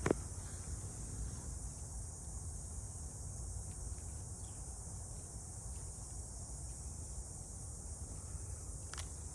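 Steady, high insect chorus of crickets or similar insects, with a low rumble underneath and a sharp click just after the start and another near the end.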